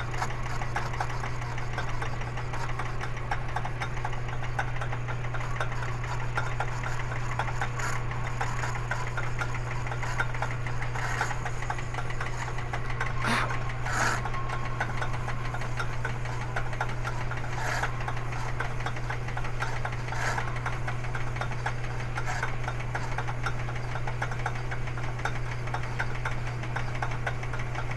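Power tool's motor running steadily while its cutter side-cuts a pocket in the soft material of a cue-ball shifter knob, with a steady hum and a few sharp ticks scattered through.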